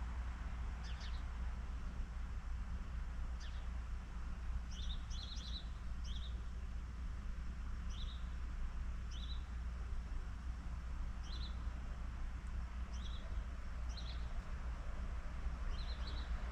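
Small birds chirping with short, scattered high chirps, a dozen or so spread irregularly, over a steady low rumble.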